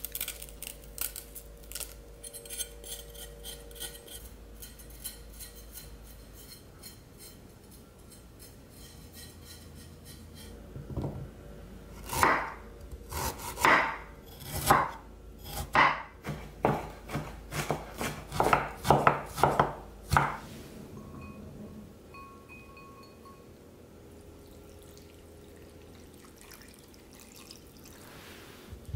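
A kitchen knife slices fresh ginger root on a wooden cutting board: a run of about fifteen firm chopping strokes, roughly two a second, over several seconds. Before that comes a faint, fast scratching as the knife scrapes the skin off the ginger.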